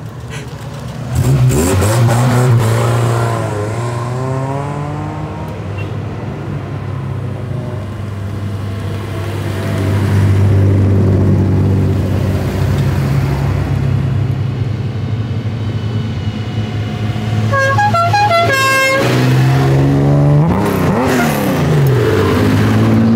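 Classic Nissan Skylines and other old cars drive past one after another, their engines revving and the pitch sweeping down as each goes by. About eighteen seconds in, a car horn gives a few short toots and then one slightly longer one.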